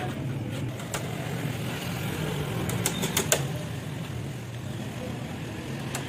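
Light hammer taps on a wooden cage frame: a single tap about a second in, then three quick taps around three seconds in. A steady low hum runs underneath.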